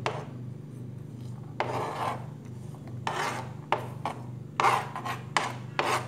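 Cut chayote strips being swept by hand off a plastic cutting board into a glass dish: several short scraping strokes with a few sharp knocks.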